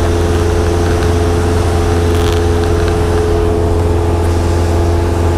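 Cessna 172K's piston engine and propeller running steadily at cruise, on a test flight of its newly installed engine, heard from inside the cabin as an even, unbroken drone.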